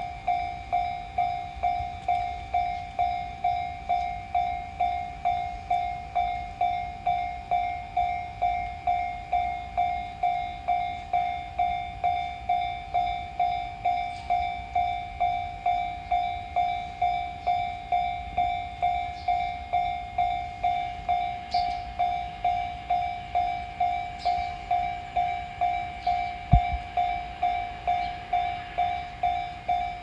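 Japanese railroad crossing's electronic warning bell ringing "kan-kan" over and over, a little under two strikes a second, while the crossing is closed. A single dull thump near the end.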